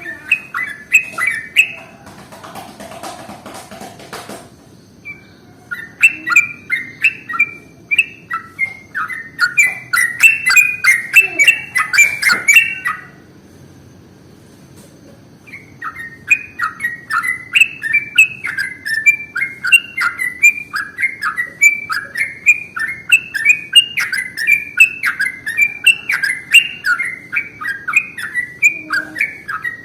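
Yellow-vented bulbul (trucukan) singing in rapid bubbly chattering runs of quick up-and-down notes. A long run breaks off about 13 seconds in and starts again a couple of seconds later.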